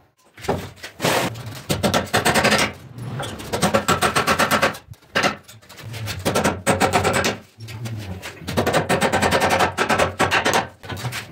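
Hammer striking a wooden door frame in quick runs of sharp blows, broken by a few short pauses.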